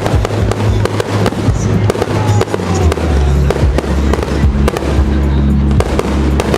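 Fireworks finale: a rapid, irregular barrage of firework bangs and crackles over music with sustained bass notes.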